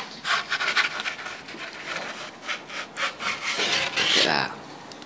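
Rough scraping and rubbing strokes in quick, uneven succession, with a louder rising scrape about four seconds in.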